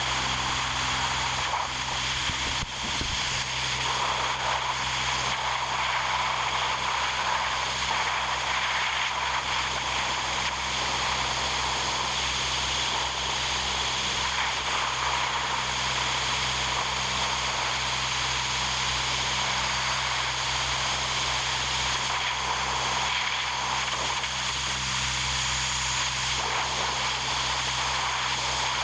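An engine running steadily at a constant speed, with an even hiss over it.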